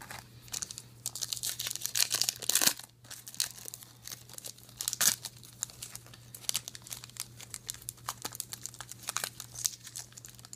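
Wrapper of a trading card pack being torn open and crinkled in the hands, a dense crackle that is loudest about two to three seconds in and again around five seconds.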